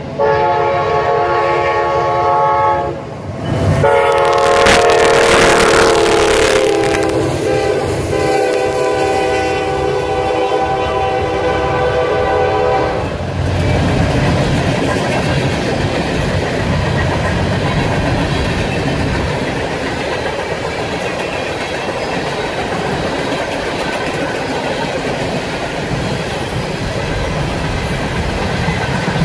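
Locomotive air horn sounding a chord, first a blast of about three seconds, then after a short break a longer one whose pitch drops as the locomotive passes, cutting off about 13 seconds in. A train then rolls by, its wheels rumbling and clacking on the rails.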